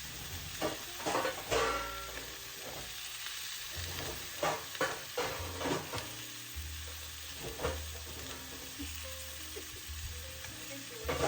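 Chicken chunks and onions sizzling as they fry in a pan, stirred with a utensil that scrapes and knocks against the pan many times.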